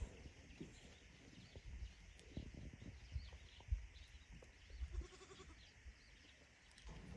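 Goats bleating, with scattered low knocks and thumps in between.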